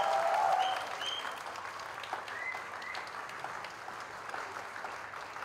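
Audience applauding after a dance performance, with whoops in the first second and a few short whistles; the applause dies down.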